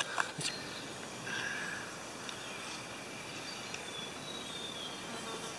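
Outdoor bush ambience: a steady hiss of insects with a few faint bird chirps, and a couple of soft clicks about half a second in.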